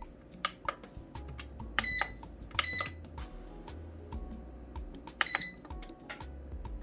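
Digital air fryer control panel beeping three short times as its buttons are pressed to set the wing program, over soft background music.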